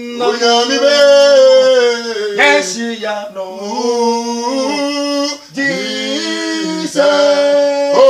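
Men singing a worship song without instruments, in long held notes that slide up and down in pitch, with a short break about five and a half seconds in.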